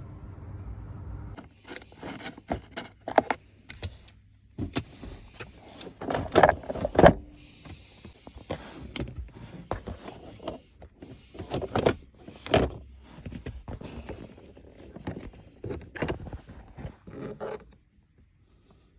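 A steady low hum that stops about a second and a half in, followed by a long run of irregular clicks, knocks and clatter.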